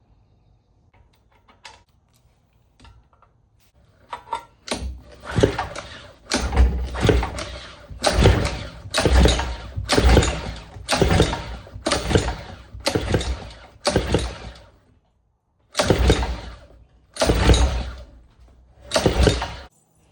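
Small pressure-washer engine cranked by its recoil starter: about a dozen quick pulls on the cord in a row, with a short break near three-quarters through, turning the engine over against strong compression without it firing.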